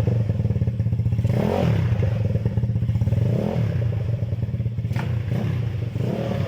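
Yamaha Mio Sporty scooter engine, bored to 200cc with a four-valve head, carburettor and aftermarket exhaust pipe, idling steadily with a couple of light throttle blips, about one and a half and three and a half seconds in. It runs a bit noisy, which the owner puts down to a part that is due to be replaced.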